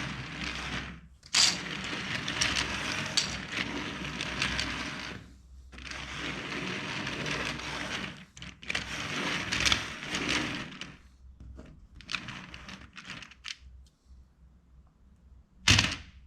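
Plastic LEGO bricks clicking and clattering as they are handled. There are long stretches of dense rattling broken by short pauses, thinning to a few scattered clicks, with one sharp click just before the end.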